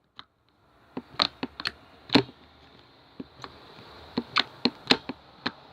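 Slime being pressed and squished by hand, giving irregular sharp wet clicks and pops that start about a second in.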